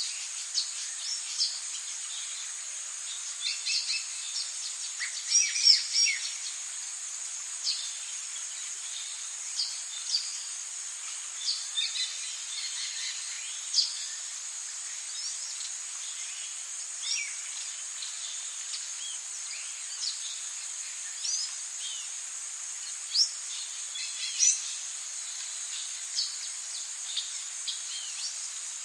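Tropical nature ambience: a steady high-pitched insect drone with many short bird chirps and calls scattered over it, the loudest cluster of calls about five to six seconds in.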